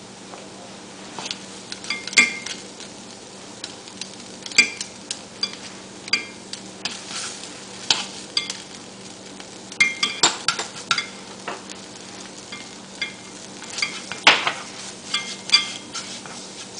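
A spatula scraping and tapping irregularly against a nonstick frying pan while tomato paste and ground spices are stir-fried in a little oil, with light sizzling and a steady low hum underneath.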